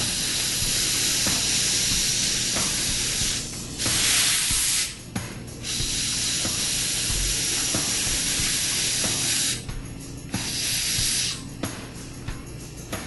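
Hand-held compressed-air blow gun hissing across a glass slide, drying off the alcohol rinse to show whether the SU-8 pattern has developed. The stream cuts briefly about five seconds in and again about ten seconds in, and is loudest around four seconds in.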